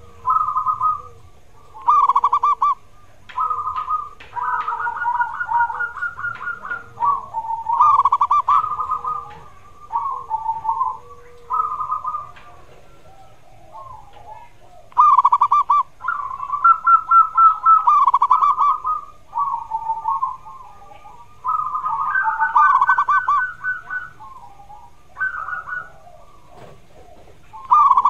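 Zebra dove (perkutut) song: repeated phrases of rapid staccato coos, one every second or two, some running together. Softer, lower coo notes sound between the phrases in the first half.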